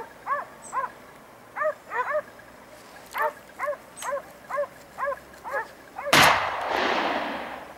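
Hunting dogs barking in a quick run of short yelps, working a wild boar in the brush. About six seconds in, a single gunshot cracks out, the loudest sound, and rings on in a long echo.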